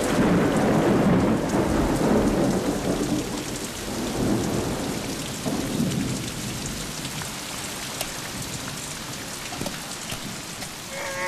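Heavy rain pouring down, with a long low roll of thunder over the first half that fades away, leaving the steady hiss of rain.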